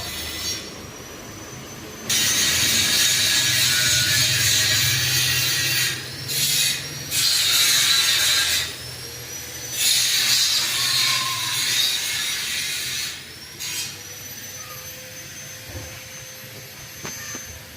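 Panasonic F-560Z2 industrial ceiling fan running: a low motor hum and a thin high whine that slowly rises in pitch, broken by several loud stretches of rushing noise that start and stop abruptly.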